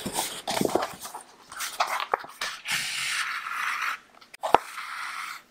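Twisted sewing thread drawn through a stitching hole in the paper signatures of a hand-bound sketchbook: several rustling swishes of thread rubbing against paper as it is pulled tight, with a sharp tick about four and a half seconds in.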